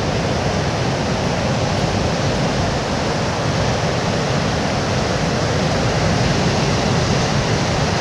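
Steady rush of ocean surf mixed with wind blowing on the microphone.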